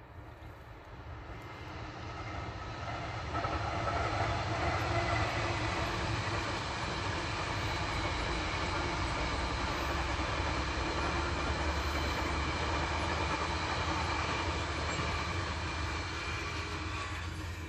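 Freight train passing: the rumble builds over the first few seconds as the locomotive nears, then a long rake of freight wagons runs by with steady wheel and rail noise, dropping away near the end.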